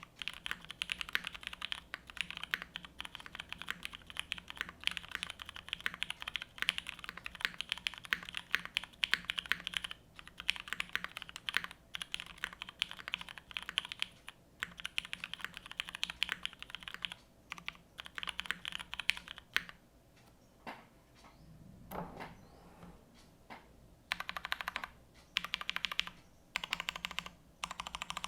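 Fast typing on an IU TKL prototype mechanical keyboard with Cherry MX Brown Hyperglide switches, GMK keycaps, a polypropylene plate and O-ring mounting: rapid key clicks with short pauses. There is a sparser break of a few seconds about twenty seconds in, with one low thump.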